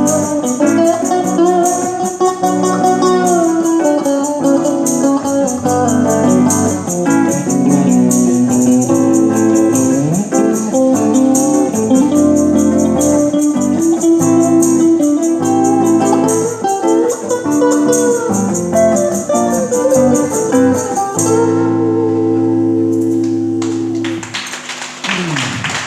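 Live band playing an instrumental passage led by guitars. It holds a final chord that stops about a second before the end.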